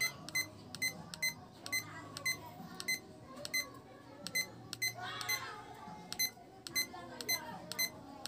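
Small digital timer beeping once at each press of its minute button: about fifteen short, high beeps, roughly two a second, as the minutes are stepped up.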